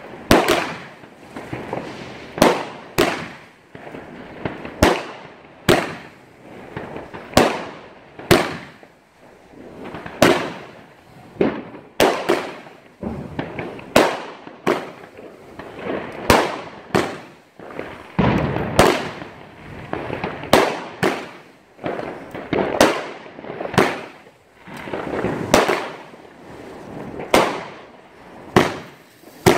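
Aerial fireworks bursting overhead one after another, a sharp bang about once a second, each trailing off before the next.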